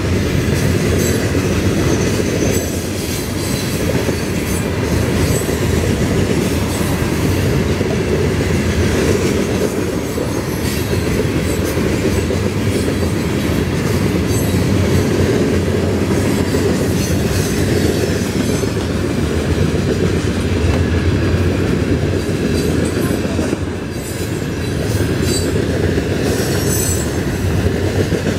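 Florida East Coast Railway freight cars rolling past close by: a steady rumble of steel wheels on the rails, with repeated clacks as the wheels cross the rail joints.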